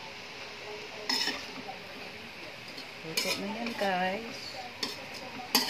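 A metal spoon scrapes and knocks against an aluminium wok as fried noodles are stirred and tossed, with a faint sizzle underneath. Four or five sharp scrapes are spread through it, and there is a short voice-like hum about two-thirds through.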